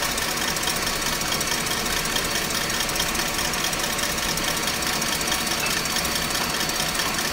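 Electric stand mixer running steadily at high speed, its whisk beating heavy cream in a steel bowl.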